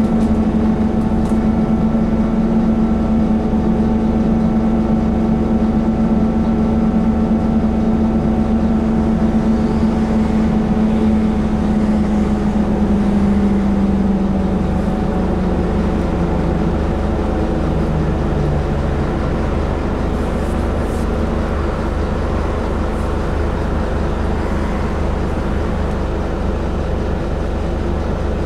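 Scania N230UD Enviro400 double-decker bus heard from inside the passenger cabin while on the move: a steady engine and drivetrain drone with a whine that falls in pitch and fades away about halfway through.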